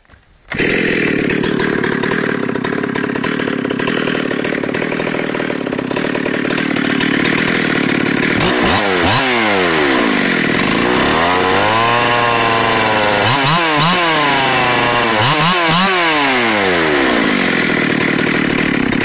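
Ported Stihl 028 AV Super chainsaw with a dual-port muffler, very loud and screaming at high revs, which the owner says is running pretty rich. It comes in suddenly about half a second in and runs steadily; from about eight seconds in its pitch drops and climbs back up several times as the revs fall and rise.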